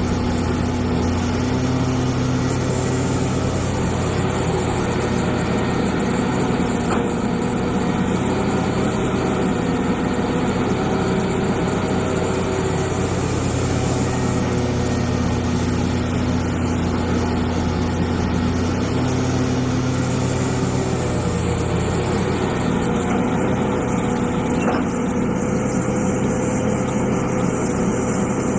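Diesel engine of a Hitachi EX450 hydraulic excavator running steadily while the machine works, its pitch shifting slightly now and then.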